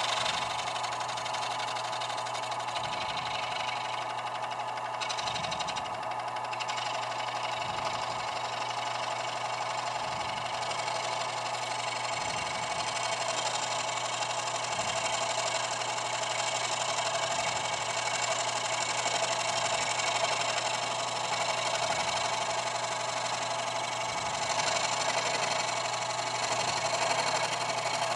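Early-1930s Dunlop scroll saw, belt-driven from a separate electric motor, running steadily at its single speed while its blade cuts through a small piece of wood.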